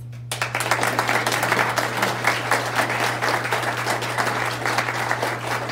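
Audience applauding, a dense patter of many hands clapping that starts suddenly just after the start and keeps going steadily.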